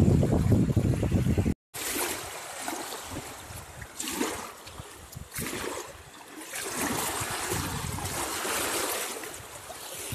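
Wind buffeting the microphone, cut off abruptly about a second and a half in. Then water splashing and trickling at a lake's edge, with a few louder swells of splashing and dripping as a small fishing net holding fish is lifted from the water.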